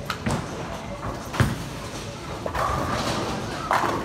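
A bowling ball set down on the lane with a thud and rolling, with a sharper thud about a second and a half in. From about two and a half seconds in comes a clatter of pins being struck.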